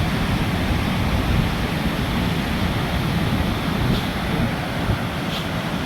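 Steady rushing roar of Victoria Falls' falling water, with wind buffeting the microphone.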